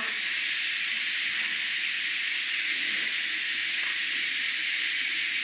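Steady, even hiss of background noise with no other clear sound.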